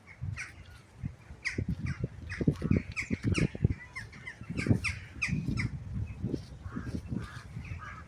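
Crows cawing: many short, repeated calls. They are mixed with louder, irregular low thumps, likely wind or handling on the microphone.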